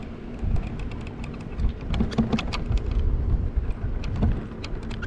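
Wind buffeting the microphone of a bicycle riding downhill, a gusty low rumble with tyre noise and many scattered small clicks and rattles.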